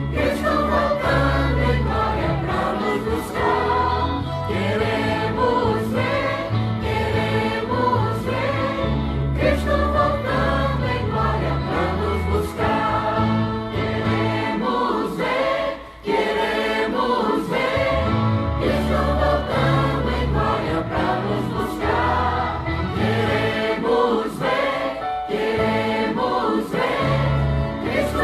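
Choir singing a Christian hymn with instrumental accompaniment and a steady bass line, with a brief drop about halfway through.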